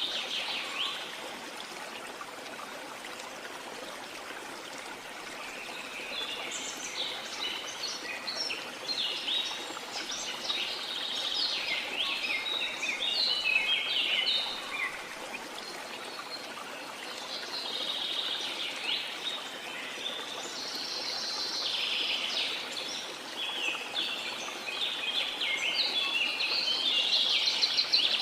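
Small songbirds twittering in quick, busy chirping phrases over a steady rush of water. The birdsong comes in bursts separated by short lulls.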